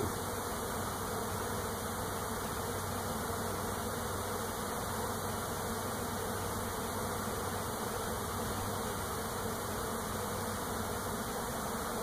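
A swarm of thousands of honey bees in flight around a Langstroth hive, their wings making a steady, even hum as the swarm moves into its new home.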